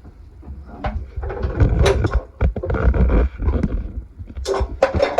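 Irregular clanks, knocks and rattling of hose fittings and tools being handled close by, with a low rumble in the middle and a few sharp knocks near the end, as the water heater's supply hose connections are refitted.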